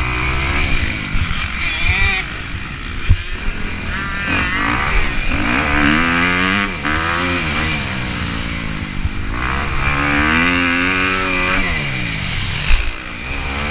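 Motocross bike's engine at racing speed, revving up and down so that its pitch climbs and drops several times as the rider accelerates and backs off.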